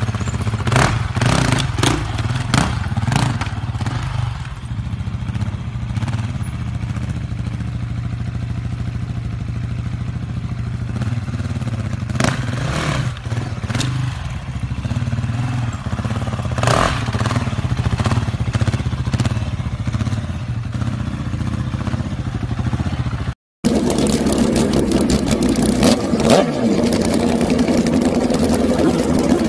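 Husqvarna 701 Enduro's big single-cylinder four-stroke engine running at low revs, with several sharp knocks and clatters over it. After a short break near the end, another motorcycle's engine runs louder.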